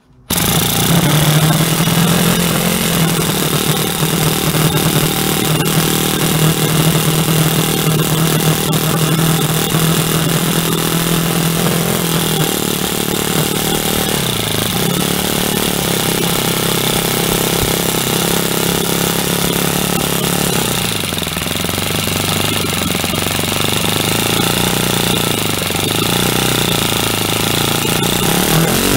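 O.S. FS-20 3.5 cc single-cylinder four-stroke glow plug model engine starting suddenly on a hand flick of the propeller, then running loud and steady. Its speed dips briefly about halfway, settles lower after about 21 seconds, and picks up again near the end.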